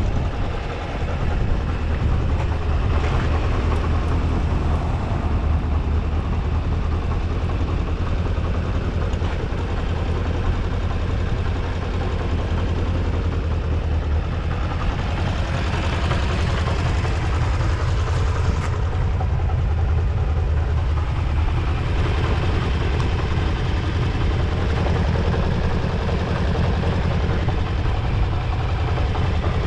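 Kawasaki GPZ400R's inline-four engine idling steadily, with no abnormal noises.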